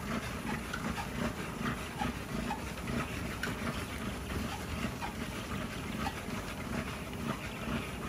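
American Bully panting as it walks on a running treadmill, a low pulsing breath a few times a second, with light ticks of paws on the belt.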